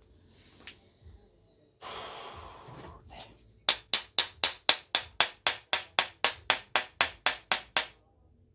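Hammer tapping the rusted-fast steel scabbard of a WW2 German bayonet to shock it loose: about seventeen sharp, even strikes, roughly four a second. A short hiss comes just before the strikes.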